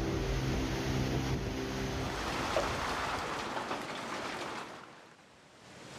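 Soundtrack sound design under a title card: low held music tones for the first two seconds under a rushing noise that swells and then fades almost to silence about five seconds in.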